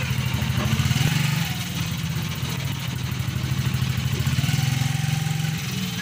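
Small motorcycle engine idling steadily, with a brief slight rise about a second in.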